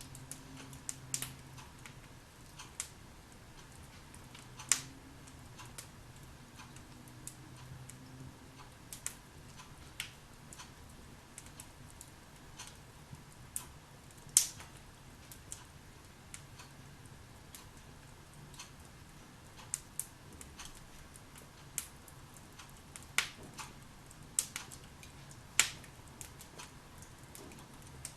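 Logs burning in a fireplace, crackling with irregular sharp pops. The loudest pops come about 5, 14 and 25 seconds in.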